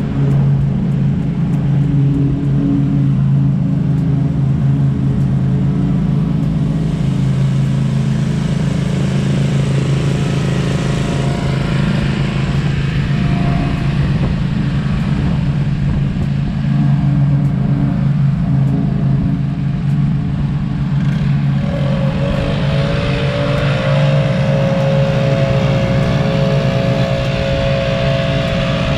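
Small gas engines of a Scag V-Ride stand-on mower pushing leaves and a gas backpack leaf blower, running as a steady drone. About three-quarters through, a higher engine tone swoops up and then holds steady.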